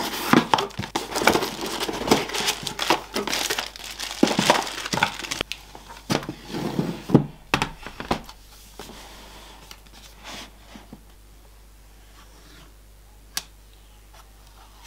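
Plastic bags crinkling and rustling as motherboard accessories are handled, busy for the first several seconds and then much quieter, with one sharp click near the end.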